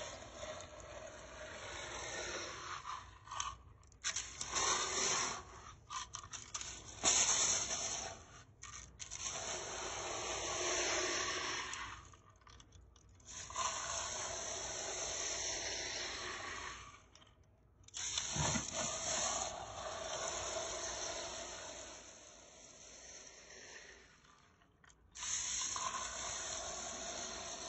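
Vacuum hose crevice nozzle sucking bath salt and rice out of carpet: a crunching, scraping rattle of grains, in stretches of a few seconds broken by brief pauses.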